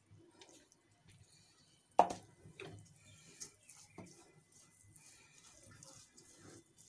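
A metal spoon knocking against a metal cooking pot as it turns over grated carrots: one sharp clink about two seconds in, then a few fainter taps and soft rustling of the shredded carrot.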